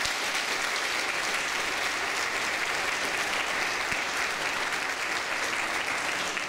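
Congregation applauding steadily, dying away near the end.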